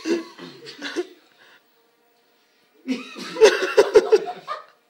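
Men laughing and chuckling, with a short burst in the first second and a louder outburst of laughter from about three seconds in, broken by a few sharp taps.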